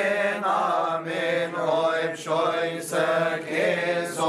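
Coptic Orthodox liturgical chant: men's voices singing a slow Christmas liturgy hymn, the melody moving and held over a steady low note beneath.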